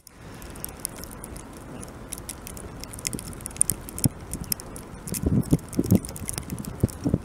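Outdoor ambience in snowfall: a steady low hiss dotted with many light ticks and clicks, with a few dull low thumps about five seconds in and again near the end.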